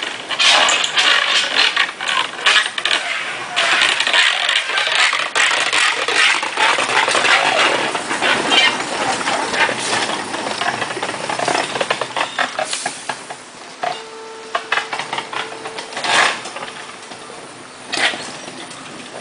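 Steel wheels of a loaded ballast car and a small electric line car clattering and rattling over small-gauge track as they roll past. The clatter is loudest for about the first twelve seconds, then fades, with two sharp clanks near the end.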